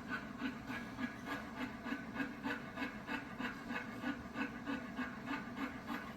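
Dog panting steadily in quick, even breaths, about three a second.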